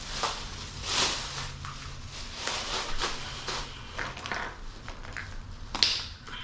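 Irregular crinkling and rustling of plastic bags and candy wrappers, with light clicks of plastic Easter eggs being opened and closed, and one sharper click near the end.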